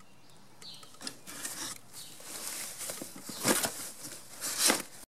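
Cardboard box and packing material rustling and scraping as a heavy metal steering-column assembly is handled and set into the box, with two louder scrapes in the second half.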